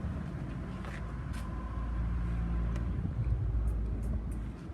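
Low, steady rumble of a motor vehicle running, with a few faint clicks.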